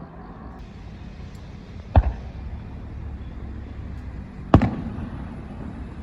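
Two bangs of aerial fireworks shells bursting, about two and a half seconds apart, each with a short trailing echo, over a steady low rumble.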